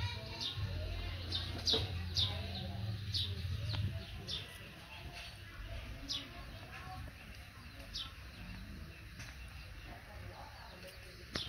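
Birds chirping: short high chirps, each dropping quickly in pitch, coming several a second for the first few seconds and then only now and then. A low steady hum underneath fades out about four seconds in.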